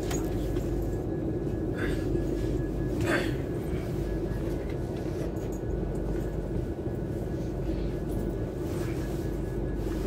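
Steady rumble and hum of a class 390 Pendolino electric train's passenger saloon, with two brief clicks about two and three seconds in.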